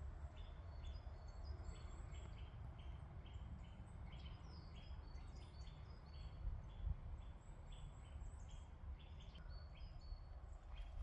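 Small birds calling in a forest: short chirps repeated about twice a second, with thin high notes over them, above a faint low rumble.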